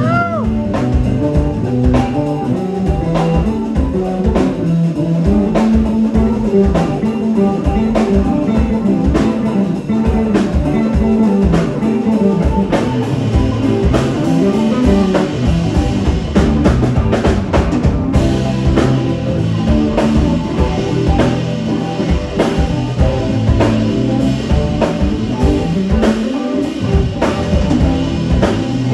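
Live band playing an instrumental passage on electric guitar, electric bass and drum kit, with the bass line moving up and down under steady drum hits.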